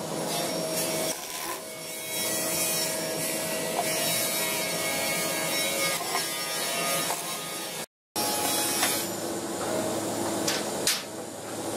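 Makita cordless drill-driver running for several seconds, driving screws through a wooden drawer box. A short break follows, then some workshop noise and a few light knocks on wood.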